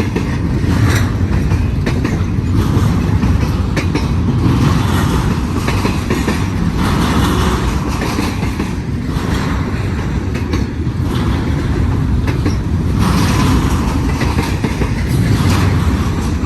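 Double-stack intermodal freight train's container cars rolling past close by: a loud, steady rumble of steel wheels on rail with a rhythmic clickety-clack of the wheels.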